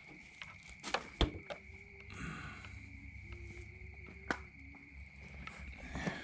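A few sharp clicks and knocks, the loudest about a second in and another past four seconds, over a steady high-pitched tone and a low rumble.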